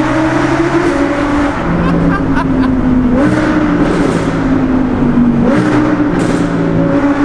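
Audi R8 V10 Plus 5.2-litre V10 with an aftermarket Quicksilver exhaust, driven hard and heard from inside the cabin in a tunnel, very loud. The engine note holds and shifts in pitch a few times, jumping up about three seconds in and again near five and a half seconds.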